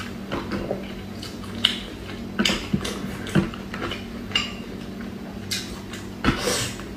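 Chopsticks clicking against a glass dipping bowl as a dumpling is fished out and dipped, a series of scattered light clicks and wet handling noises. Near the end the dumpling is bitten into. A steady low hum runs underneath.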